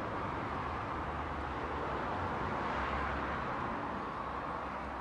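Road traffic noise: a passing vehicle's sound swells to a peak about three seconds in, then fades.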